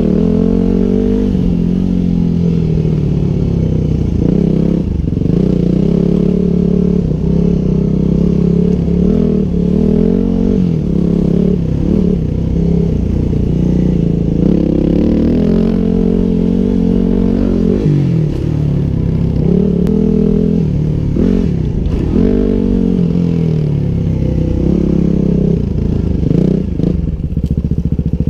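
2009 Yamaha WR250X's 250 cc single-cylinder four-stroke engine running, its pitch rising and falling again and again as the throttle is opened and closed on a dirt trail. A few sharp knocks come through around the middle.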